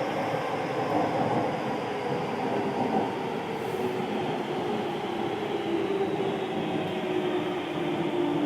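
Keio new 5000 series electric train running, heard from inside the passenger car: a steady rumble of wheels on rail with the whine of its Hitachi SiC inverter-driven traction motors, several tones slowly falling in pitch.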